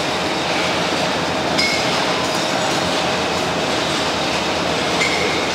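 Bottling-line machinery running steadily, with glass bottles clinking and rattling as the conveyor carries them along. Two brief high squeaks come about one and a half seconds in and near the end.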